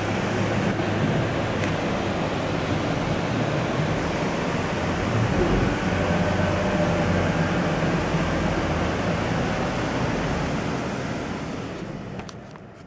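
Steady rushing noise, like wind or water, with a faint low hum beneath it; it fades out in the last second.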